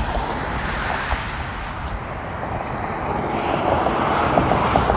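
Road traffic going by, a vehicle passing with a steady rush that swells louder toward the end.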